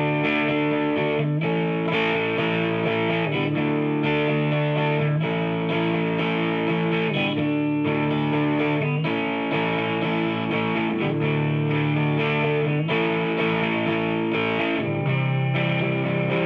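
Background music: an electric guitar with distortion playing sustained chords that change about every two seconds.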